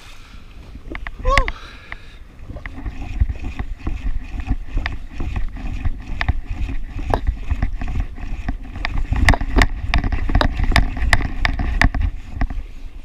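Choppy waves slapping and splashing against the hull of a Yamaha FXHO WaveRunner jet ski, with wind on the microphone. The slapping comes as a run of irregular knocks that grows denser and louder after the first few seconds.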